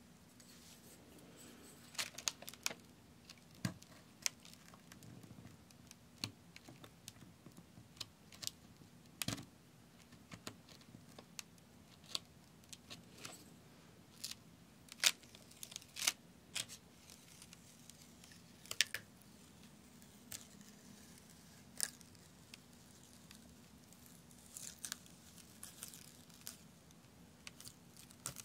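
Paper backing being picked up with a wooden stick and peeled off the sticky adhesive of a sand art board: irregular sharp crackles and paper crinkles.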